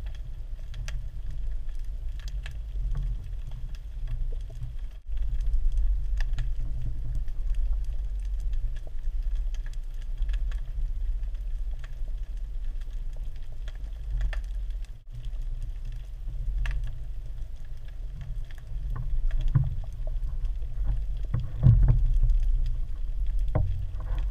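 Muffled underwater sound picked up through a camera's waterproof housing: a steady low rumble of moving water, with scattered faint clicks. It drops out briefly twice, and a few louder knocks come near the end.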